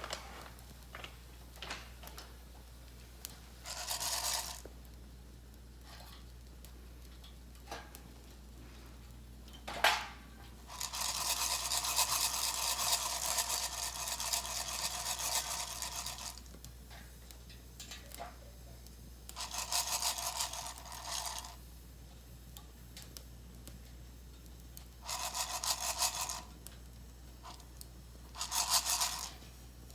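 Coffee beans being shaken in an Iri-jozu hand roaster, rattling and rasping in irregular bouts, the longest lasting about five seconds, with a sharp click just before it.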